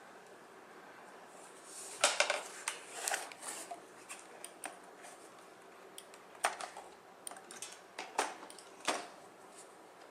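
Hands handling the packaging and plastic parts of a robot vacuum during unboxing: scattered sharp clicks, light knocks and short rustles. There is a cluster about two seconds in and a few more strikes near the end.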